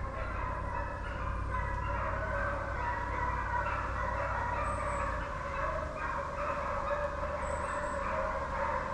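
A pack of deer hounds baying in chorus, many voices overlapping continuously: the sign of the dogs running a deer's trail.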